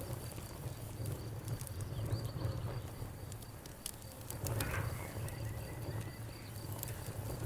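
Campfire crackling with scattered sharp pops, over a cricket chirping in a rapid, even pulse at a high pitch, and a steady low rumble underneath.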